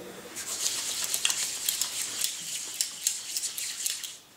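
Palms rubbing together to spread a little hair oil: a slick, crackling rubbing with many small clicks that stops shortly before the end.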